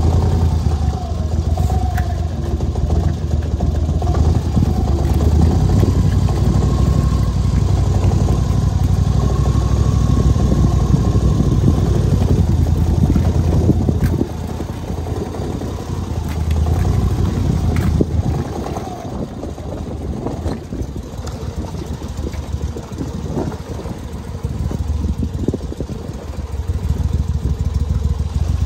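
Boat motor idling with a steady low rumble, with wind on the microphone. A wire crab trap is hauled aboard and shaken, rattling now and then.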